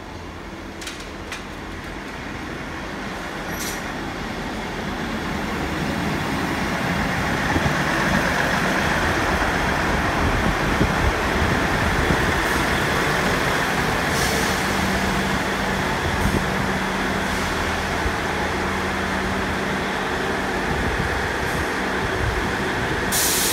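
Class 158 diesel multiple unit arriving and running along the platform, its underfloor diesel engines growing louder over the first several seconds and then holding a steady running note as it slows. A short, loud hiss of air comes near the end.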